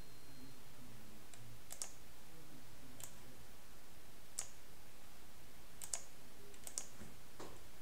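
Scattered clicks from a computer mouse and keyboard: short, sharp single clicks and quick pairs, a second or so apart.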